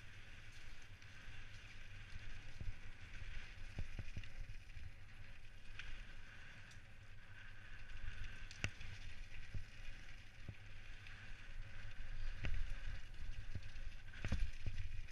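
Specialized Stumpjumper mountain bike descending a rough, muddy dirt trail. Its tyres keep up a steady rumble over the ground, while the frame and chain give off scattered sharp knocks and rattles from bumps in the trail. The knocks come louder and more often towards the end.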